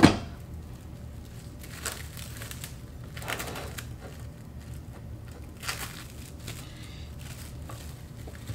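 Plastic cling film crinkling in a few short rustles as it is gathered up and folded over a mound of pounded yam on a plate. Right at the start, a loud short knock as a lid is set on a metal pot.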